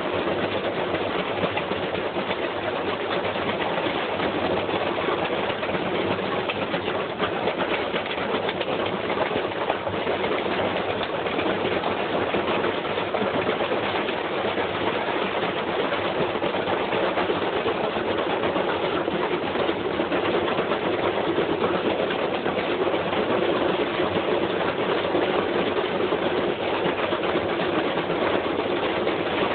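Top-loading washing machine running with a heavy chunk of metal loose in its drum, a steady mechanical run under dense, rapid clattering throughout. The machine is being wrecked by the load.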